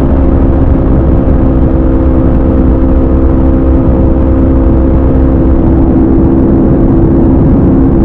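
Aprilia RSV4 RF's V4 engine through a de-catted SC Project CRT exhaust, running under steady throttle at nearly constant revs while the bike cruises at highway speed. A heavy low wind rush runs beneath the exhaust note.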